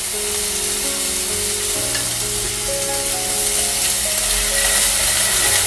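Diced chicken sizzling in hot oil in a nonstick frying pan as dried-chilli chutney goes in and a wooden spatula stirs it, a steady hiss throughout. Soft background music with held notes plays underneath.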